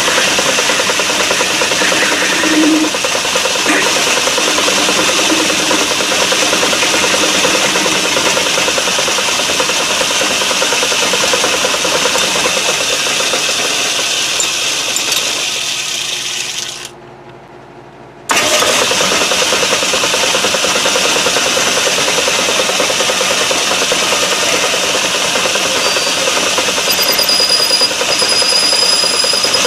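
Metal lathe running steadily, its chuck spinning a brass cylinder blank while it is drilled from the tailstock. The sound fades and drops away for about a second and a half a little past halfway, then comes straight back.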